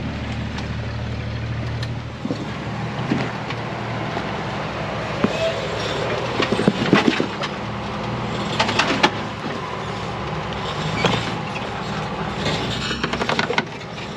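Jeep engine running at crawling speed over rocks, its low hum strongest in the first couple of seconds. Scattered knocks and crunches from the tyres on the rock come through, clustered in the middle of the stretch.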